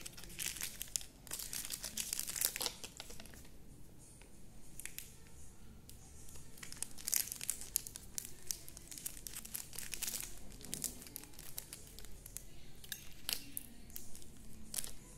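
Thin plastic packaging crinkling and rustling as it is handled and pulled open, in irregular bursts with short lulls, and a few sharp clicks near the end.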